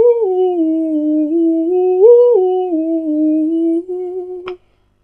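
A woman humming a slow melody, holding notes that step down, back up and down again, with a short click near the end.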